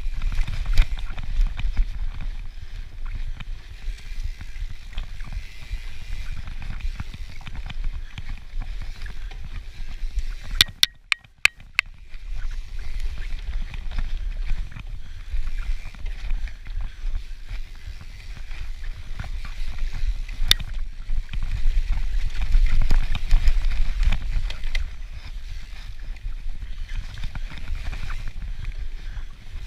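Cannondale FSI carbon hardtail mountain bike ridden fast over a dirt singletrack: wind buffeting the microphone, with tyre and bike rattle. About eleven seconds in the noise briefly drops away and a quick run of sharp clicks sounds, with another single click near twenty seconds.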